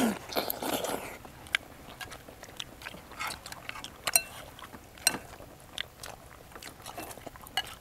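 Close-miked eating sounds of several people chewing chicken curry and bread: soft mouth and chewing noises with scattered sharp little clicks, and a short hum right at the start.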